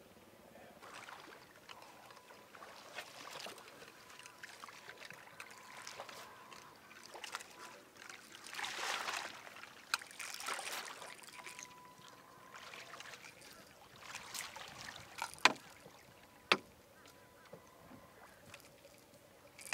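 Water splashing as a hooked catfish is fought on a bent rod beside an aluminium boat, loudest about halfway through, with handling noise and two sharp knocks a second apart near the end.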